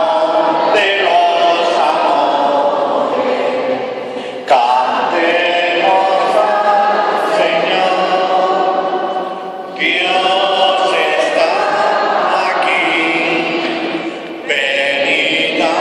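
A church congregation singing a hymn together, line by line, with short breaks between the lines.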